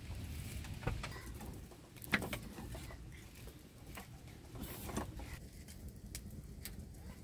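Wood fire of coconut husks and sticks crackling, with a few scattered sharp snaps, the loudest about two seconds in, over a low steady outdoor rumble.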